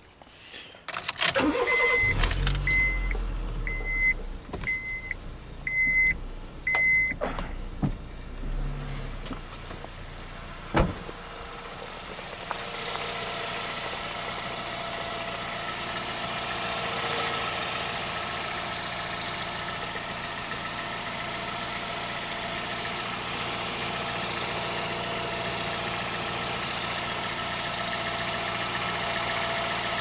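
A car's warning chime beeps six times, about once a second, among a low rumble and a few clunks, two of them a few seconds apart. Then the car's engine runs steadily, heard close to a front wheel.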